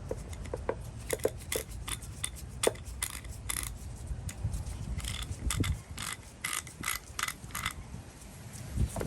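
Socket ratchet's pawl clicking over its gear as the handle is worked back and forth, in short quick runs of clicks. The freshly cleaned and oiled mechanism still works a little rough.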